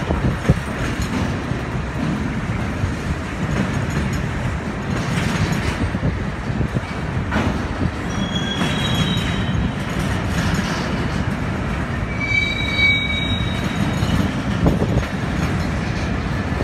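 Freight cars of a passing BNSF train rolling by: a steady rumble of steel wheels on rail with scattered knocks and clicks, and a few short high wheel squeals, the clearest about twelve seconds in.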